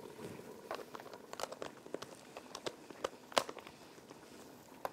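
Scattered crinkling and light clicks of hands in plastic food-prep gloves working ingredients, irregular and fairly quiet.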